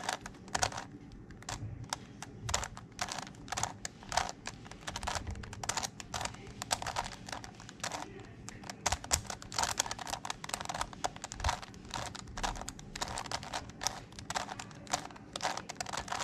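A megaminx puzzle being turned quickly by hand: an irregular run of plastic clicks, several a second, as its faces snap round.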